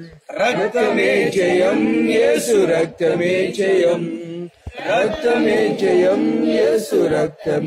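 A group of voices singing unaccompanied, a worship chant with long held notes, broken by short pauses about three and four and a half seconds in.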